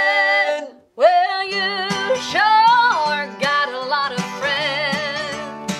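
Singing with acoustic guitar: voices hold a long note that breaks off under a second in. After a brief gap, a woman sings a wordless, wavering run with vibrato over picked acoustic guitar.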